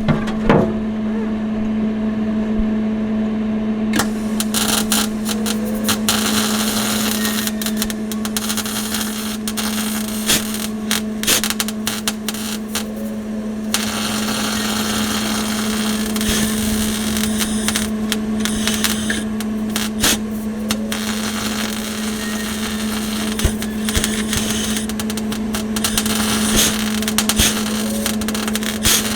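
Wire-feed (MIG) welder arc crackling in long and short bursts over a steady electrical hum, while a hole in thin sheet metal is filled by welding around its edge in circles.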